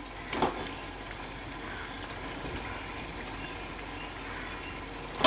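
Tomato-curd masala simmering in a large aluminium pot while raw chicken pieces are tipped in from a steel bowl. There is a brief knock or plop about half a second in and a sharper, louder one near the end.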